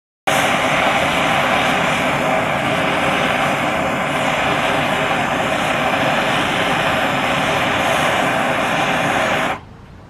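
Handheld gas torch flame hissing steadily and loudly while heating an aluminum piece for brazing with a flux-cored aluminum welding rod. It starts abruptly and cuts off suddenly just before the end.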